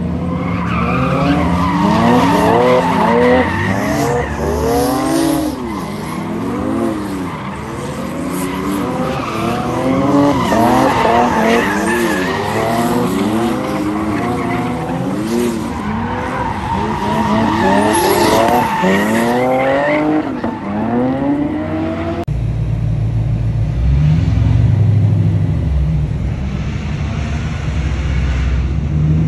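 A car doing donuts: its engine revs up and down again and again while the tires squeal and skid. About 22 seconds in it cuts to a steady low rumble of a car driving, heard from inside the cabin.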